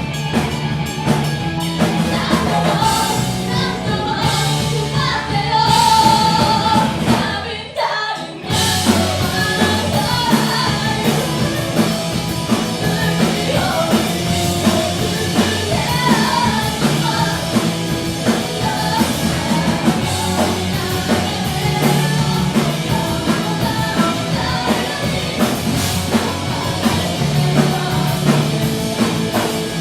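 Rock music with singing and a drum kit, cutting out briefly about eight seconds in.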